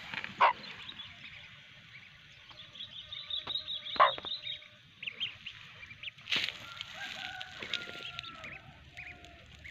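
Ducklings peeping in quick, high chirps, mixed with a mother hen's lower, drawn-out clucking calls to her brood. A few sharp knocks cut through, the loudest about four seconds in.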